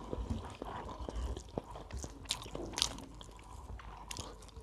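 Two people chewing and eating with their hands: mouth sounds of chewing with scattered short clicks.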